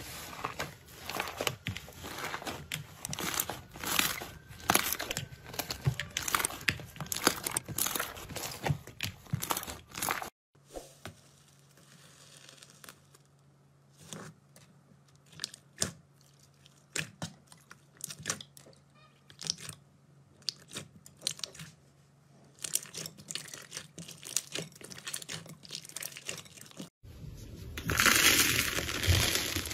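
Hands squeezing and kneading slime in a bowl, making crackling, crinkly squishes. The crackle is dense for about the first third, thins to scattered pops in the middle, and turns loud and crunchy near the end.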